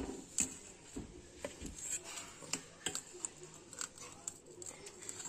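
Metal spoon tapping and scraping against a metal kadai and a steel bowl while pieces of fish in curry are lifted out, in light, irregular clinks.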